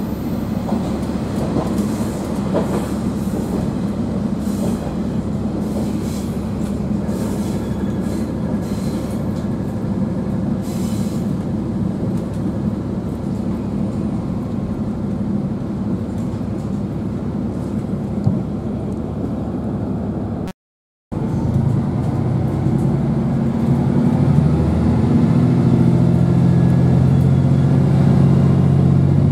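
Onboard a KiHa 40 diesel railcar under way: steady rolling noise of the wheels on the rails with a few clicks early on. The sound cuts out briefly about two-thirds through, then the diesel engine's steady drone comes up and grows louder toward the end.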